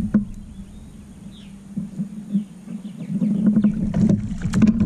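Water and wind noise around a kayak while a hooked bass is reeled in. A run of sharp clicks and knocks comes in the last second or so as the fish is brought to the boat.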